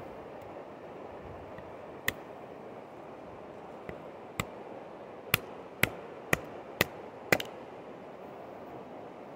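Batoning: a wooden baton strikes the spine of a Bark River Mini Aurora knife driven into an upright stick to split it. Sharp knocks, two spaced apart and then five in quick succession about two a second, over a steady background hiss.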